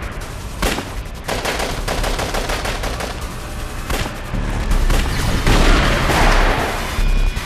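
Gunfire: repeated shots and rapid automatic-weapon fire, thickening into a dense burst about five seconds in, over a steady deep low rumble.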